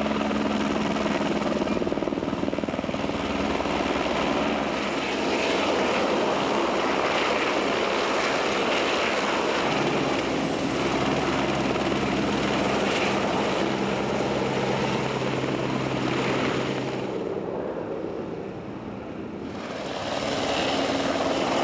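Firefighting helicopter flying with a water bucket slung beneath it: steady rotor and turbine noise. It drops away briefly about three-quarters through, then returns.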